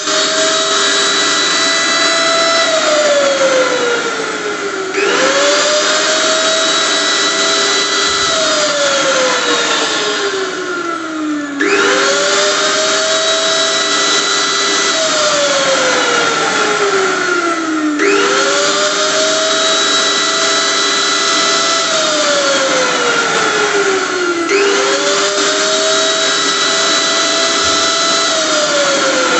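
Electric kitchen blender motor running in repeated pulses: each time it spins up quickly to a steady high whine, runs for a couple of seconds, then winds down with a falling pitch before starting again, about every six and a half seconds.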